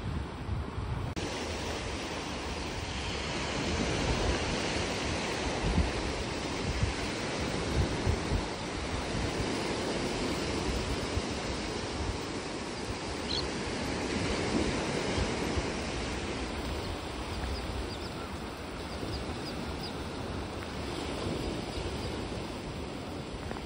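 Small Gulf surf washing up on a sandy beach, with wind gusting on the microphone.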